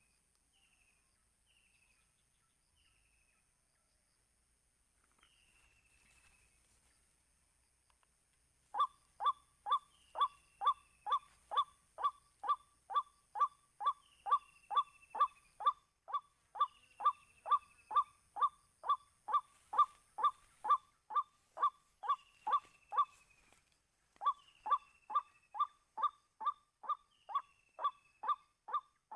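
Faint falling chirps about once a second, then, about nine seconds in, a white-breasted waterhen's loud, monotonous 'wak' notes start, about two a second, with a short break near the end.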